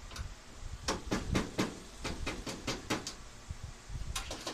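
Rubber mallet tapping a truck's grille to seat it: a quick run of about ten sharp taps, about four a second, then a few more knocks near the end.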